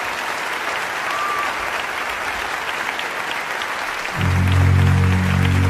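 Audience applauding. About four seconds in, a low sustained chord of music comes in under the applause and becomes the loudest sound.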